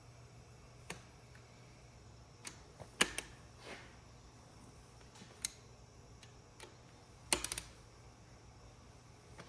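Scattered light metallic clicks and clinks of tools and engine parts being handled, the sharpest about three seconds in and a quick run of clicks past seven seconds, over a steady low hum.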